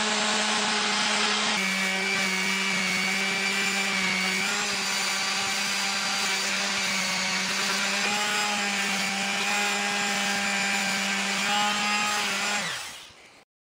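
Parkside electric sander running with a steady buzzing hum as its sandpaper works the steel blade of a knife made from a wagon spring. Near the end it is switched off and its hum falls in pitch as it winds down.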